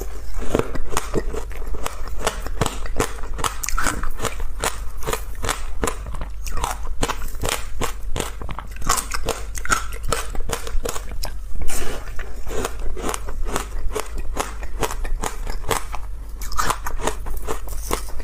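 Close-miked biting and chewing of crunchy frozen ice: a rapid, continuous run of sharp crunches and cracks.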